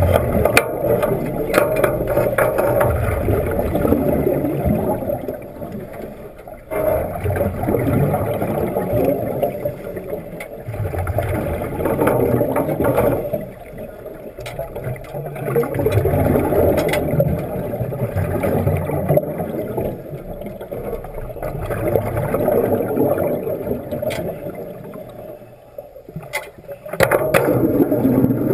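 Underwater rush and gurgle of exhaust bubbles from a commercial diver's hard-hat helmet, swelling and fading in surges every few seconds with his breathing, with scattered clicks. Near the end the wet-welding arc is struck and the sound becomes louder and steadier.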